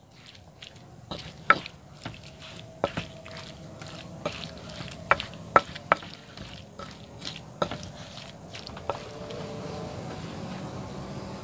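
Pestle pounding and grinding grilled banana heart with chilli in an earthenware mortar (cobek): irregular sharp knocks against the bowl with wet squishing between them.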